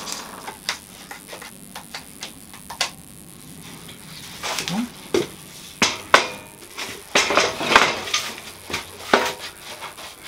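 Wooden strips and one-handed bar clamps being handled: scattered light clicks at first, then a run of sharper wood-on-wood knocks and clatter in the second half.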